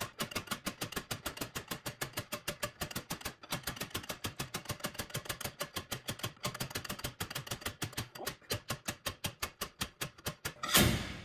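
A ratchet clicking fast and evenly, about seven to eight clicks a second with short breaks, as the lock nut of a slide-hammer hub puller is run tight. Near the end, one heavy metal thump as the slide hammer strikes to knock out the seized, rusted wheel hub and bearing.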